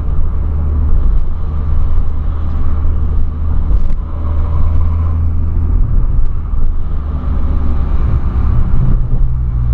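Volkswagen Polo driving, its engine and road noise heard from inside the cabin as a steady low drone. Near the end the engine note steps up in pitch.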